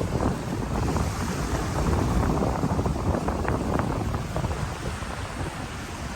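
Wind buffeting the microphone: a steady, loud rumbling rush with crackling gusts.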